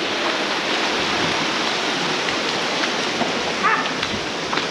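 Shallow creek water rushing steadily over sandstone, with a few splashing footsteps in the water.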